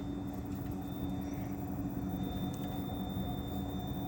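Steady mechanical hum with a faint high whine, unchanged throughout.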